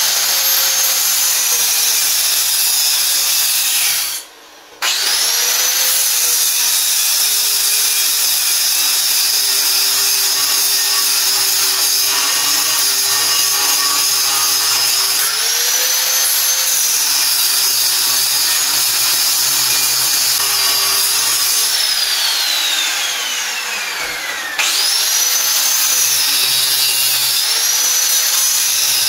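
Electric angle grinder grinding down a scrap-steel piece so it sits flat, its motor whine dipping and recovering as the disc is pressed in. It stops briefly about four seconds in and spins back up with a rising whine. About three quarters of the way through it winds down with a falling whine and is restarted a couple of seconds later.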